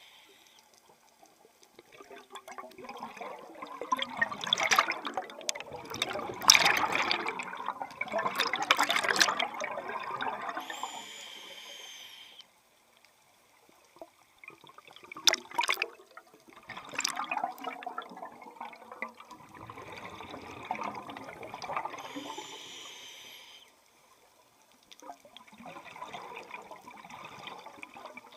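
Scuba diver breathing through a regulator underwater: three long bubbling exhales of several seconds each, with a short hissing inhale between them, about a third of the way in and again near three quarters of the way.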